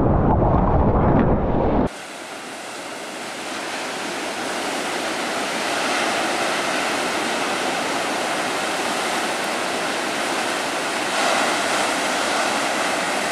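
Loud, low rush of water and wind buffeting an action camera's microphone at board level, which cuts off suddenly about two seconds in. It gives way to the steady hiss of breaking surf, which builds slowly and holds, swelling a little near the end.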